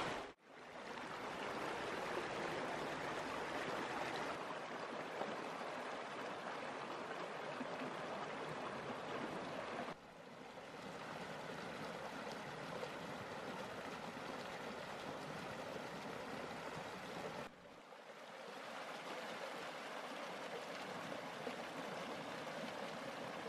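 Small snowmelt creek running over rocks between shelves of ice, a steady rush and babble of water. The level drops suddenly a few times and then resumes.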